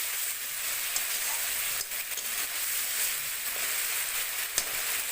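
Spice paste with blended tomato sizzling in hot mustard oil in a pan while it is stirred and cooked down, with a few light scrapes or taps of the spoon against the pan.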